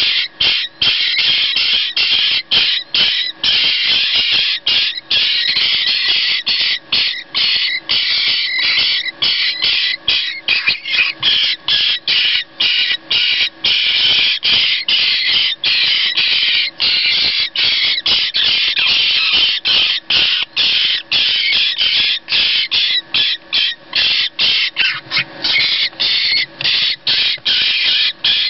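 Jackdaw nestlings begging for food: loud, harsh, high calls repeated rapidly with only brief breaks, from chicks gaping with beaks wide open.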